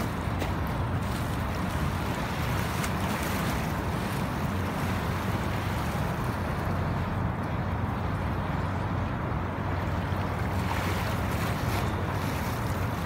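Steady low drone of a motorboat's engine under way, mixed with the rush of water and wind buffeting the microphone.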